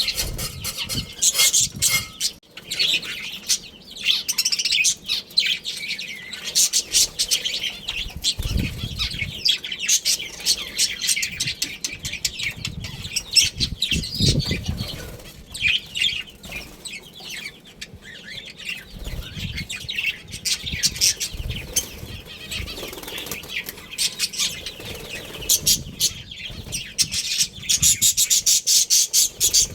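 A flock of budgerigars chattering and chirping in a rapid, continuous stream of high-pitched notes, with wings fluttering. A couple of deep thuds come through around a third and halfway in.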